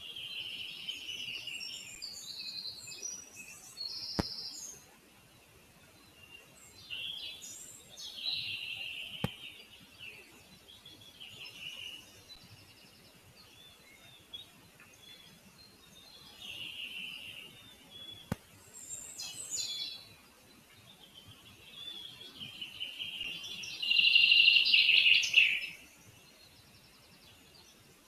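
Small songbirds singing, in phrases of a second or two every few seconds, the loudest one near the end. A few faint clicks between them.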